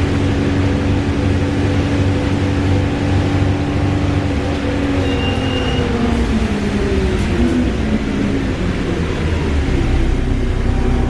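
Wright Gemini 2 VDL DB300 double-decker bus running, with loud whirring from its drivetrain; about halfway through, the whirring tones slide down in pitch over several seconds.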